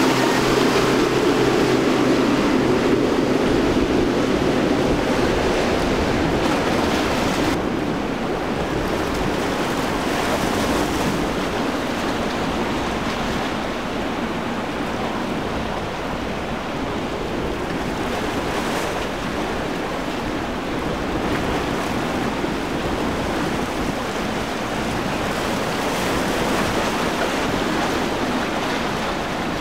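Outboard motor of a center-console boat running at speed, a steady engine hum over the rush of hull spray and waves. About seven seconds in the engine tone fades and rushing water and wind on the microphone make up most of the sound.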